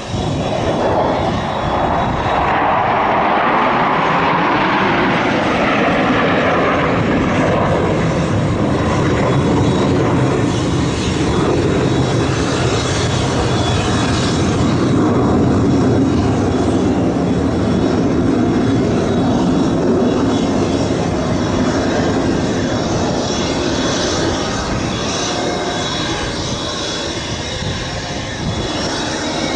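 Formation of F-16 fighter jets flying overhead, their jet engines making a loud, steady rush. The tone sweeps in the first few seconds as the formation passes.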